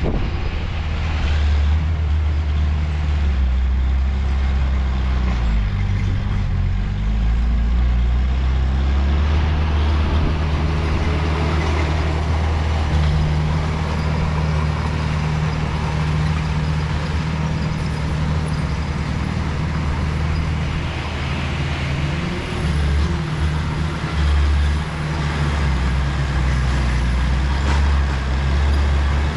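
Large diesel engine of heavy earthmoving machinery running steadily with a low drone, its pitch shifting a few times, briefly around a quarter of the way in and again about three-quarters through.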